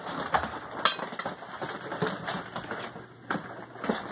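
A person scrambling down and moving about among objects on the floor: scuffling with scattered knocks and light clinks, one sharp click about a second in.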